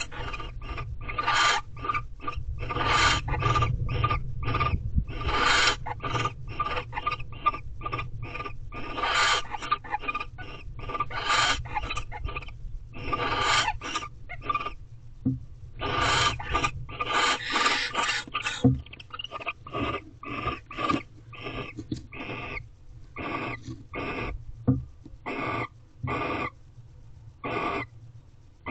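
Barn owls in a nest box giving a long series of raspy hissing screeches, each under a second, coming once or twice a second and varying in loudness, from a pair during courtship. A low rumble runs underneath.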